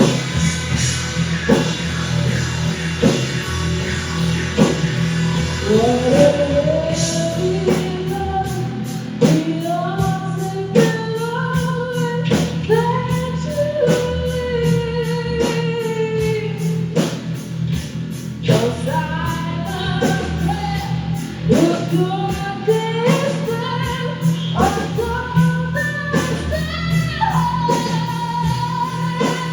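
Rock band playing, with electric guitar and a steady drum-kit beat; a singer's voice comes in about six seconds in, with sliding, wavering sung lines.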